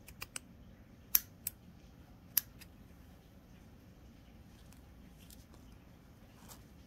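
Scissors snipping through a stiff black hexagonal-mesh net fabric: about six sharp snips in quick succession, the loudest about a second in and again near two and a half seconds.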